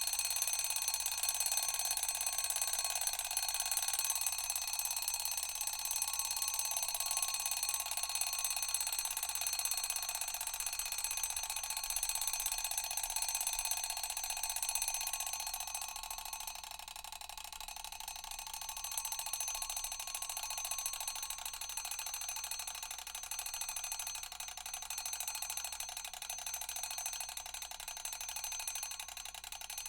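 Mechanical bell alarm clock ringing continuously: a rapid, unbroken ring made of many steady high tones, dipping a little in loudness about halfway through.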